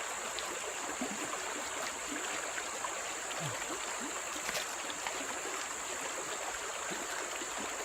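Forest stream running steadily, an even rush of water, with a steady high-pitched whine over it.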